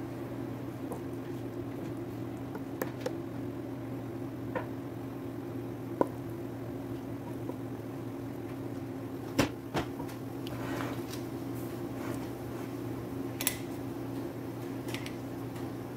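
Wooden spatula scraping thick chili paste into a glass jar, soft squelching with a few sharp clicks of utensils against the glass, over a steady low hum.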